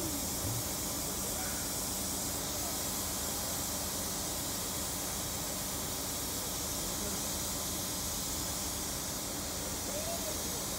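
Steady outdoor hiss with faint voices of people talking now and then.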